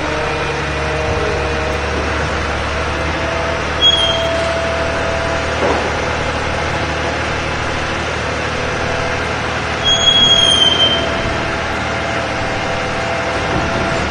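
Truck engine idling steadily, with two brief high squeals, one about four seconds in and a longer one about ten seconds in.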